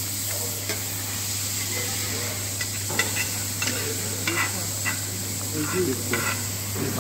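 Diced meat sizzling on a flat-top steel griddle, with metal spatulas scraping and clicking against the plate as it is stirred and chopped. The clicks come irregularly, about one a second, and there is a steady low hum underneath.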